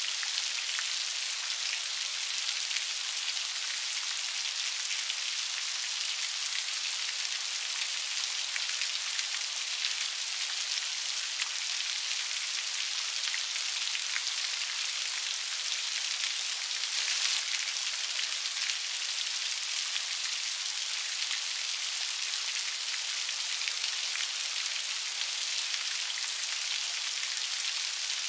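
Steady rain falling, a dense hiss of many small raindrop impacts at an even level with no low rumble.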